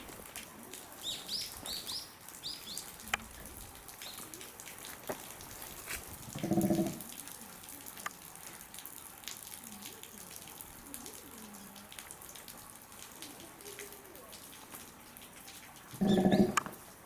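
Small birds chirping in quick high notes, and twice a short, low call from an animal, about six seconds in and again near the end; these two calls are the loudest sounds.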